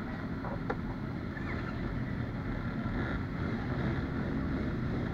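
Sport motorcycle engine idling steadily, a low even rumble.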